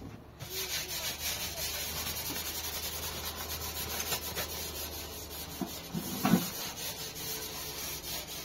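Steady rubbing or scraping noise lasting several seconds, with a short knock about six seconds in.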